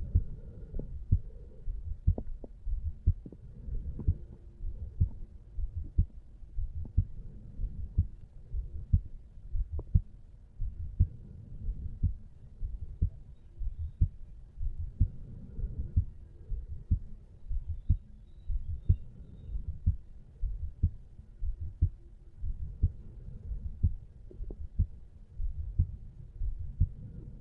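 A resting adult male's heartbeat heard over the mitral valve area of the chest: a steady, regular run of low-pitched lub-dub beats.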